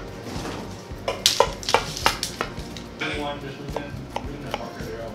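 Knife cutting through the crisp crust of a giant chocolate chip cookie baked in a cast iron skillet, crunching and crackling. A cluster of sharp clicks comes about one to two and a half seconds in.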